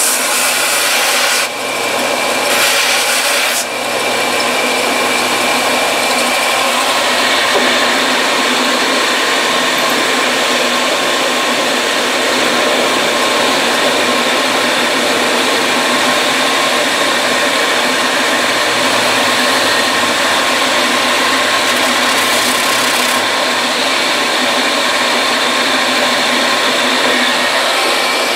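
Electric belt sander with an 80-grit belt running steadily while the butt of a wooden gunstock and its rubber recoil pad are ground and shaped against it, with a harsher grinding hiss in the first few seconds and again about three quarters of the way through as the work is pressed to the belt.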